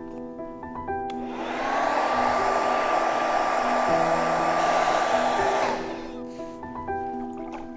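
Handheld hair dryer blowing with a steady whine. It comes on about a second in and switches off a little over four seconds later. Soft piano music plays underneath.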